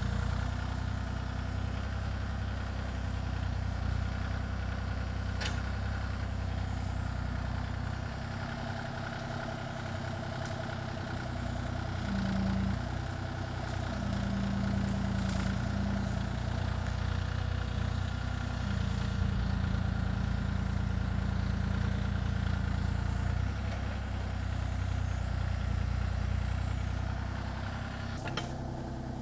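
Kubota KX033-4 compact excavator's diesel engine running steadily, its note shifting now and then as the machine works, with a few faint clicks.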